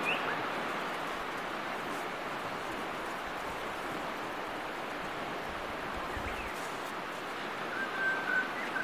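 Steady wash of surf on a beach, with a couple of faint high chirps and a short, level whistling call near the end.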